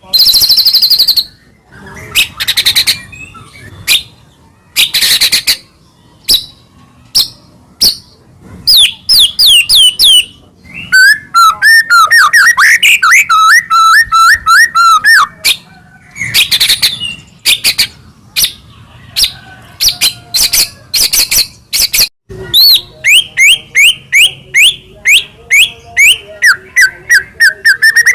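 White-rumped shama (murai batu) singing loudly in short, varied phrases with brief gaps: rattling 'kretek' calls, fast runs of repeated notes and whistled slides.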